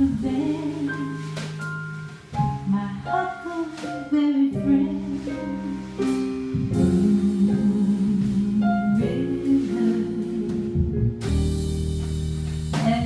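Female vocalist singing jazz with a live band: upright double bass, drum kit with cymbals, and keyboard.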